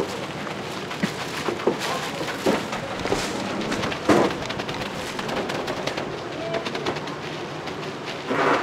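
Gloved hands pushing and spreading a mass of syrup-coated puffed-grain oranda snack on a plastic-wrapped metal tray. It makes a dense, crackly rustle with a few louder knocks, the loudest about four seconds in.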